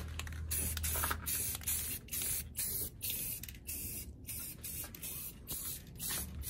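Rust-Oleum black aerosol primer can spraying in a quick series of short hissing bursts, about two a second, laying a light first coverage coat on engine-bay sheet metal.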